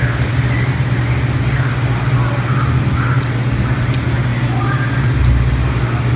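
A steady low mechanical hum under a constant background noise.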